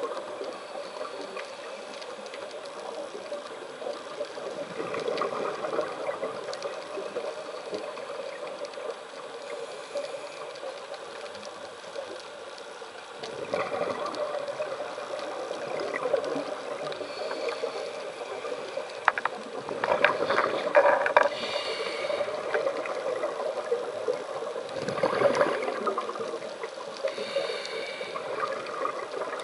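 Scuba regulator breathing heard underwater: gurgling bursts of exhaled bubbles every few seconds over a steady hum, the loudest about twenty seconds in.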